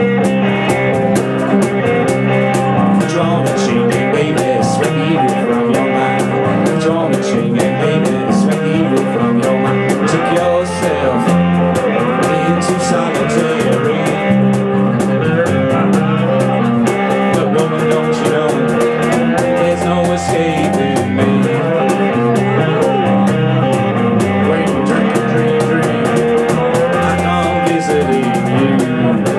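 A live band playing an instrumental passage, with guitar over a drum kit.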